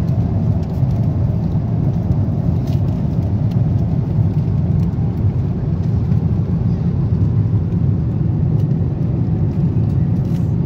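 Steady low rumble of aircraft cabin noise inside a Boeing 777-300ER, with a few faint clicks over it.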